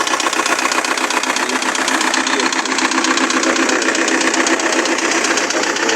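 Diesel engine of a Foton truck, a Chinese replica of a Perkins, running with an unpleasant, rapid, steady valve knock after an overhaul. The knock persists despite repeated valve adjustment; it comes from a collapsed exhaust valve spring on the fourth cylinder and a scored rocker shaft.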